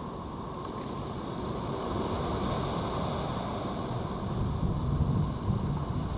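A road vehicle passing: a low rumble that swells from about two seconds in and is loudest about five seconds in, over a steady hiss.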